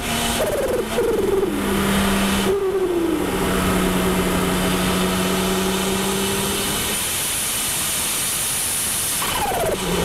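Turbocharged car engine shifting up through the gears under load, its pitch falling at each shift with a fast fluttering chatter from the turbo as the throttle lifts. The engine then holds a steady note for several seconds before another shift near the end.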